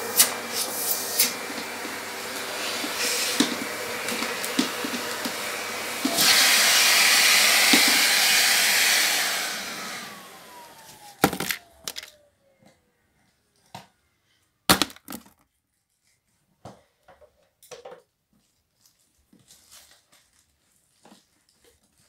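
Vacuum cleaner running, with small items clicking and rattling as they are sucked up; it gets louder about six seconds in. Then it is switched off and the motor whine falls away as it spins down, followed by a few scattered knocks.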